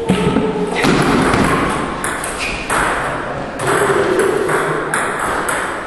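Table tennis rally: a serve followed by the celluloid ball clicking off the rackets and the table, several sharp clicks at irregular intervals.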